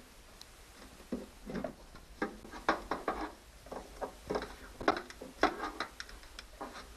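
Light, irregular clicks and knocks of hand tools and small metal parts being handled while a screw is worked in a tight space.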